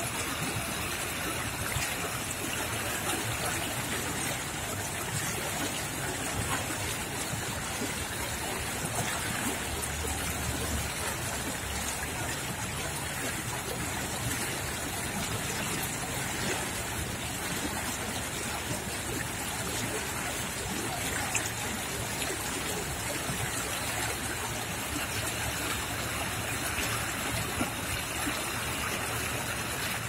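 Small stream swollen with spring snowmelt and rain, rushing and splashing steadily over stones.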